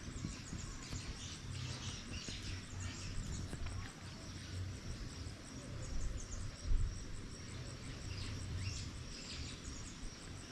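Small birds chirping repeatedly in quick, short, falling notes, over a steady low wind rumble on the microphone, with one brief thump about two-thirds of the way through.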